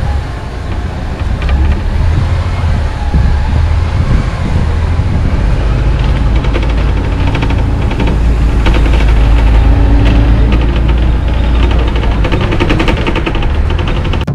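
Sightseeing bus running through a narrow street, heard from on board: a steady engine rumble with road noise and rattling.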